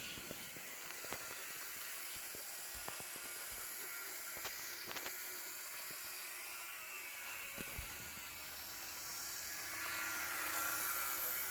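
Model BB 67001 locomotive running on its track: a faint, steady motor whir with scattered light clicks from the wheels on the rails, growing a little louder near the end.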